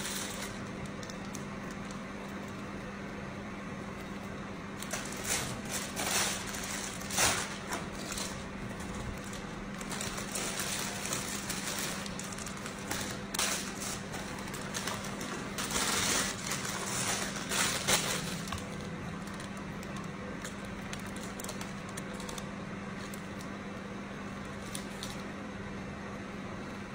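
Irregular rustling and crinkling of a plastic piping bag handled while piping cream rosettes, in short bursts, over a steady low hum.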